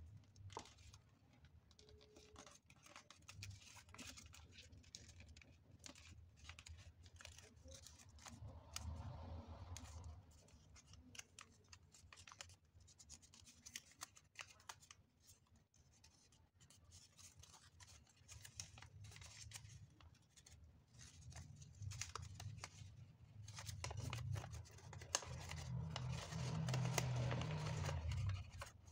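Origami paper being folded and creased by hand: faint crinkling and rustling with many small ticks and scrapes, louder about eight seconds in and again through the last several seconds.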